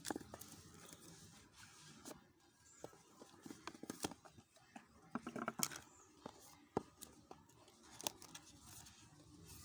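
A cardboard smartphone retail box being opened and its packaging handled: scattered faint clicks, taps and short rustles of card and plastic.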